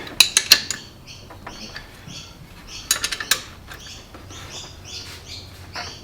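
Light metallic clinks of metal parts being handled, in two short clusters about half a second in and about three seconds in, with small birds chirping repeatedly in the background.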